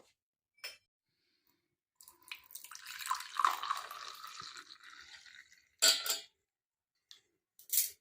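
Water splashing or being poured into a vessel for about three seconds, followed by two short, sharp clatters of a kitchen utensil or vessel.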